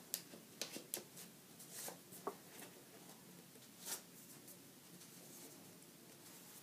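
Faint handling sounds of a photobook and DVD case: a string of light clicks and rustles over the first four seconds, then near quiet.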